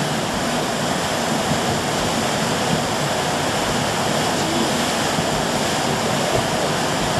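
Ruidoso River in flood, rushing fast: a steady, noisy wash of fast water with no let-up.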